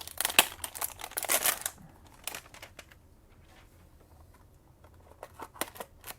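Plastic wrap on a trading-card hanger box crinkling and tearing as it is cut and pulled off, busiest in the first two seconds, then scattered crackles and clicks.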